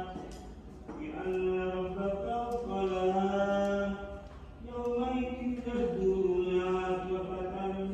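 A man's voice chanting an Islamic prayer recitation in long, held, ornamented phrases, pausing for breath about half a second in and again around four seconds in.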